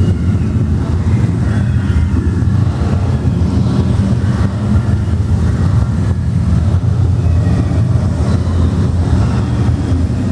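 Amusement-park train running, heard from aboard as a loud, steady low rumble.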